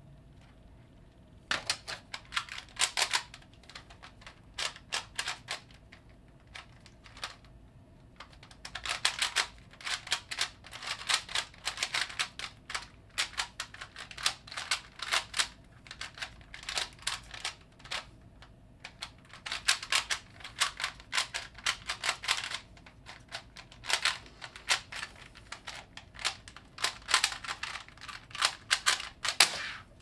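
A plastic 3x3 Rubik's cube being turned rapidly with one hand: rattling clicks of the layers turning, in quick bursts separated by short pauses, starting about a second and a half in.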